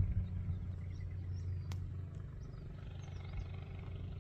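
Low, steady rumble of wind on the microphone in an open field, with a few faint high chirps and one faint click about a second and a half in.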